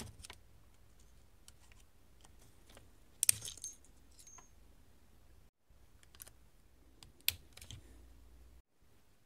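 Sharp metallic clicks of a screwdriver prying a star-type retaining washer off a pin on a Brunswick GS-X ball accelerator's linkage arm. The loudest click, about three seconds in, carries a short metallic ring, and another comes about seven seconds in.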